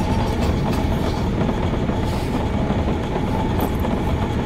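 Car idling, heard from inside the cabin at a drive-thru window: a steady low rumble with a faint steady whine.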